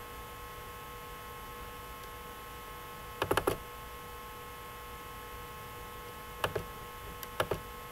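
Computer mouse clicking: a quick cluster of clicks about three seconds in and three single clicks near the end, over a steady electrical hum.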